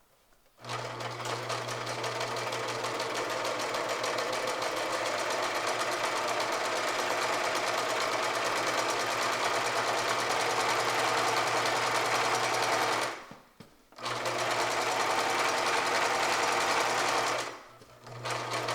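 Sewing machine stitching through burlap in a long steady run. It stops briefly about thirteen seconds in, runs again, then pauses and starts up once more near the end.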